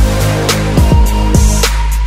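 Electronic background music that kicks in suddenly with a heavy, regular drum beat over deep sustained bass.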